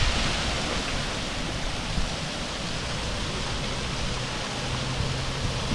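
Water rushing through a canal lock gate: a steady, even rush.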